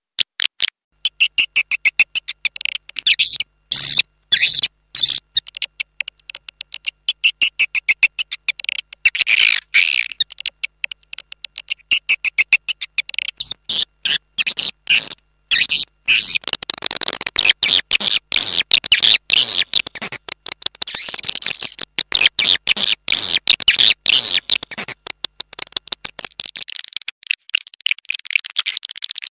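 Swiftlet call recording, the lure sound played from swiftlet houses to draw in edible-nest swiftlets: fast trains of high, sharp chirps and clicks, thickening into continuous twittering chatter about halfway through, then turning softer and duller near the end.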